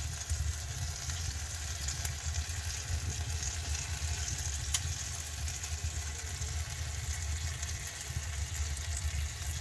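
Barbecue-sauce glaze sizzling on a beer-can chicken in a hot offset smoker: a steady hiss with a few faint crackles, over a steady low rumble.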